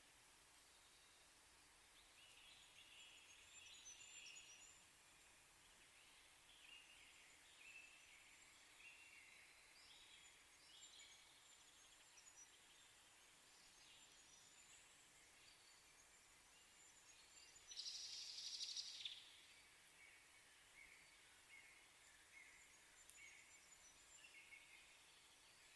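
Very faint outdoor ambience with scattered short high chirps, and one louder hiss of about a second roughly two-thirds of the way through.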